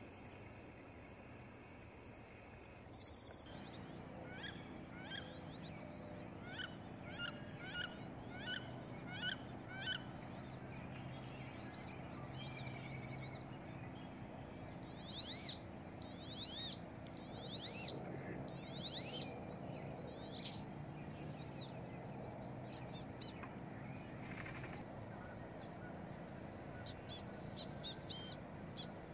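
Female wood duck calling: short repeated calls, then a run of four or five loud rising squeals around the middle, with fainter bird calls through the rest, over a steady low hum.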